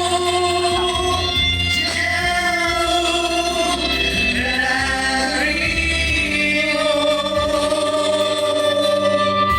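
Singing with musical accompaniment: long held sung notes over a steady low bass.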